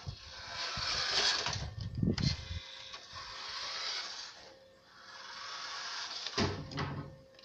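Toy RC car's small electric motor and gears whirring in surges of a second or two as it drives on concrete, with a couple of dull thumps.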